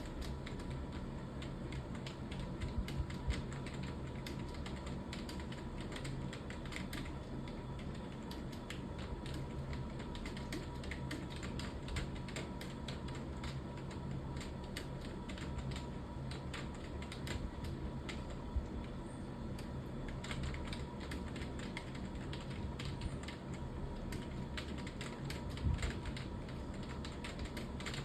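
Continuous fast typing on a computer keyboard, keys clicking several times a second in an unbroken run, over a low steady hum.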